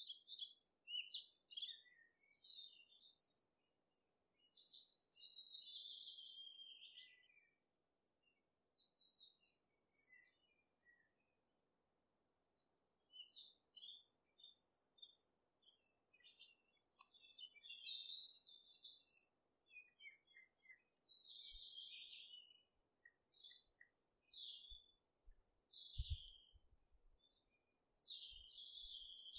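Birds chirping and singing in quick, varied phrases broken by short pauses, with a few dull bumps near the end.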